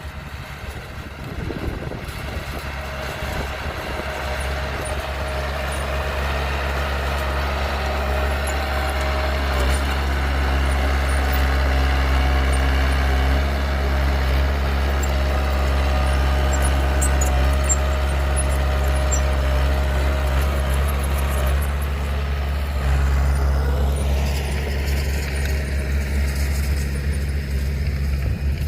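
Heavy diesel engine of a truck or earthmoving machine running steadily, growing louder over the first ten seconds or so and changing in tone a few seconds before the end.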